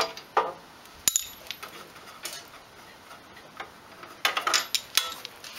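Irregular clicks and light metal clinks of a ratchet and socket working the snowblower's spark plug, with a small flurry of clicks near the end.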